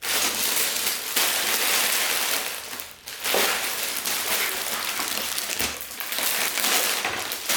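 Crinkling of a plastic bag of Lego pieces being handled, with a short lull about three seconds in.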